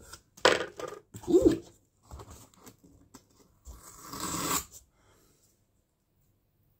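Two short vocal sounds in the first second and a half, then the cardboard flaps of a shipping box rubbing and being pulled back about four seconds in.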